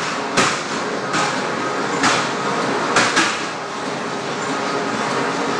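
Amusement ride running with a rider aboard: a steady rushing, rumbling mechanical noise, broken by a few sharp knocks in the first three seconds.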